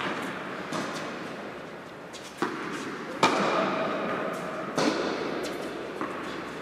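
Tennis ball knocks from racket hits and bounces on the indoor hard court during a rally, four sharp impacts over a few seconds, the loudest a little past three seconds in. Each knock echoes in the large hall.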